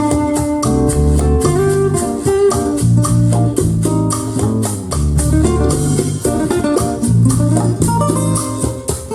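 Jazz-fusion music with guitar, a repeating bass line and drums, played back through KEF Q11 loudspeakers.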